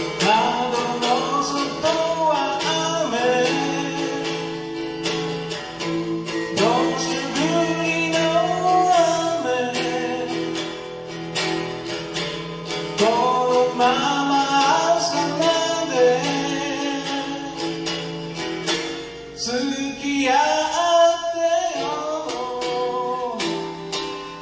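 A man singing a song in phrases while strumming a small acoustic guitar, picked up live through a stage microphone.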